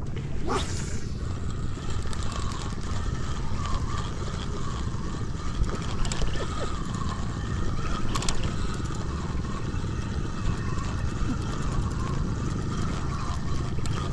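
Spinning reel being cranked, a steady whirring that rises and falls with each turn of the handle, over a low rumble of wind on the microphone.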